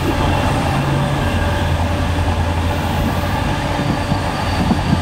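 Passenger train running along the track, heard from on board: a steady low rumble with no change in pace.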